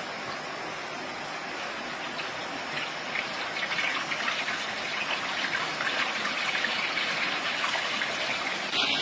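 Stream water running steadily over rocks, a little louder from about three seconds in.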